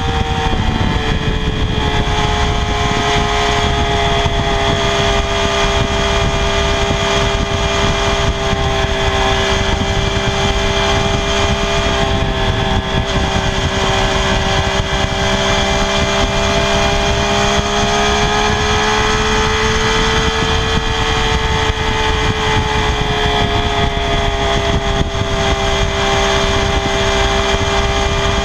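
Triumph Daytona 675R's inline three-cylinder engine through its stock exhaust, running at steady high revs. The pitch dips slightly about a second in, then holds with a gentle rise and fall later on.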